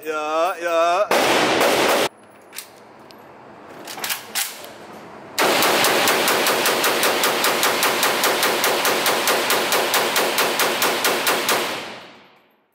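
AK-pattern rifle fired fully automatic: a long burst of rapid, evenly spaced shots starting about five seconds in and stopping near the end, ringing in the enclosed indoor range. Near the start there is a short wavering voice and a loud blast.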